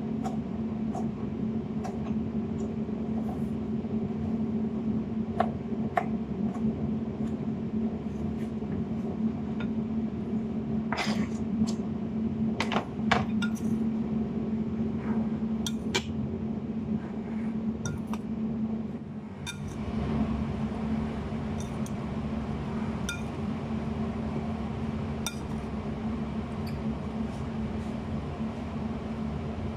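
Knife tapping on a wooden cutting board as tomatoes are diced, then sharp clinks as the diced tomato goes into a glass salad bowl, most of them in a cluster around the middle. A steady hum runs underneath.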